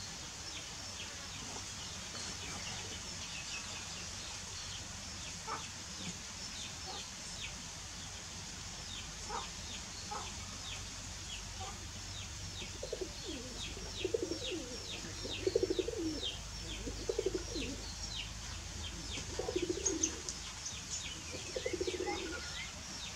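Small birds chirping in many quick, short, downward-sliding calls, joined from about halfway by low cooing calls in short phrases, a few seconds apart.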